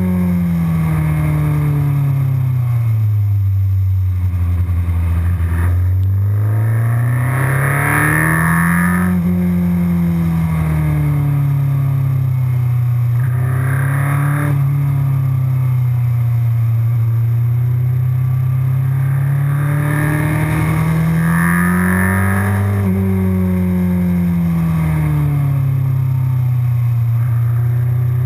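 MV Agusta F4 inline-four sportbike engine heard from the rider's seat, its pitch rising and falling repeatedly as the rider accelerates and rolls off the throttle through a run of bends.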